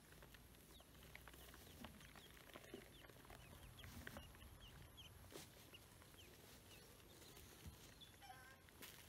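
Ducklings peeping faintly: a string of short falling chirps, with a quick run of peeps near the end, and scattered light clicks.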